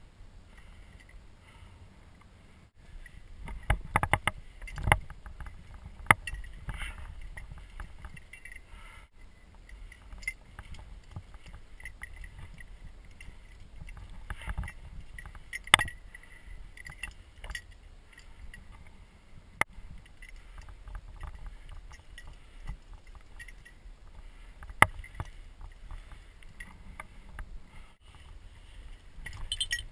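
Rock-climbing contact noise: a climber's hands, rope and gear scraping and knocking on granite. Scattered sharp knocks and clicks, a few of them loud, come over a low rumble.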